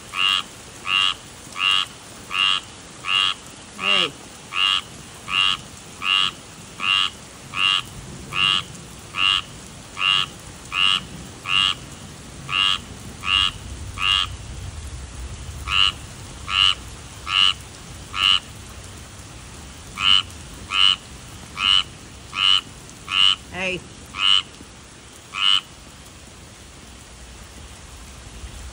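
A tree frog calling: one short note repeated about every two-thirds of a second, with a couple of brief pauses, stopping a few seconds before the end.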